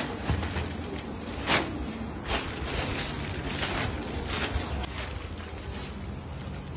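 Clear plastic bag rustling and crinkling as a heavy lump is gripped and lifted inside it, with a few sharper crackles in the first half.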